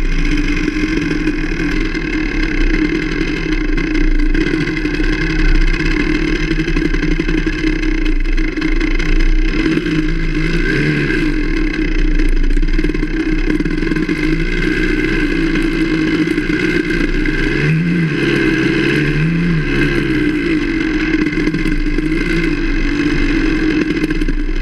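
Enduro dirt bike engine running while riding along a trail, its revs swinging up and back down briefly a few times, most clearly about halfway through and twice close together later on.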